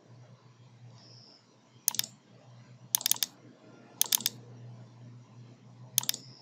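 Computer mouse button clicking: four quick groups of two or three clicks, double-clicks about a second apart, over a faint low steady hum.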